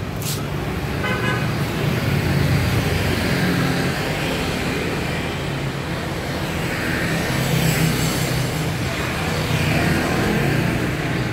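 Road traffic going by: a steady rumble of engines and tyres that swells several times as vehicles pass, with a click at the very start and a brief toot about a second in.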